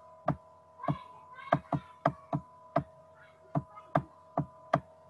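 About a dozen sharp clicks at uneven intervals as short strokes are drawn on a computer whiteboard, over a faint steady high hum.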